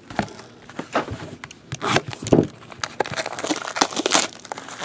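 Trading-card pack wrappers crinkling and tearing as packs are opened by hand, a dense run of short crackles.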